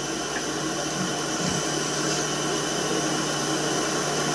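Steady, even background hiss with a faint low hum underneath.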